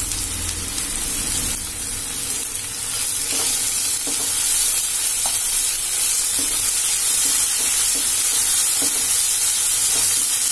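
Chopped onion, tomato and green chilli sizzling in oil and butter in a nonstick kadai while a wooden spatula stirs and scrapes through them, with light knocks of the spatula on the pan now and then. The sizzle grows a little louder a few seconds in.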